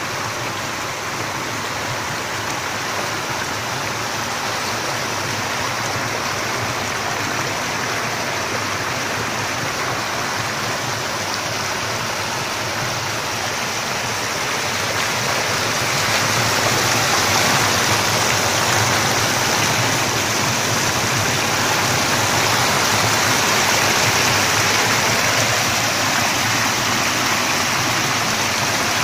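Floodwater pouring over the lip of a small concrete weir and churning over rocks below: a steady, loud waterfall rush that grows a little louder about halfway through. The overflowing city pond is spilling over the top of the weir.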